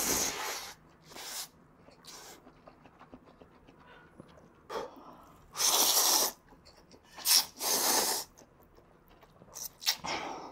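A person slurping instant ramyeon noodles in spicy broth in repeated short slurps, about six in all, the longest and loudest around the middle and just after.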